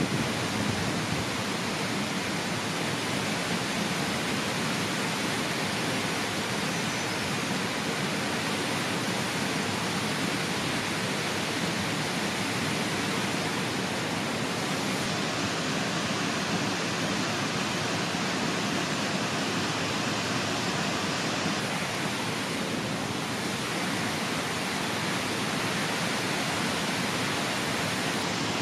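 Steady rush of flowing water, an even hiss that holds level without gusts or breaks.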